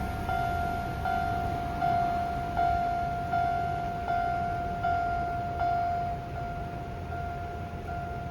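Fukui Railway level crossing alarm ringing at a slow pace: one clear tone struck about every three-quarters of a second, each strike fading before the next. The strikes become quieter about six seconds in.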